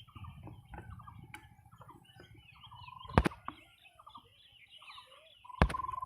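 Many small birds chirping and twittering, with a short held trill sounding twice, around the middle and near the end. Two sharp clicks stand out, the louder about three seconds in and the other near the end.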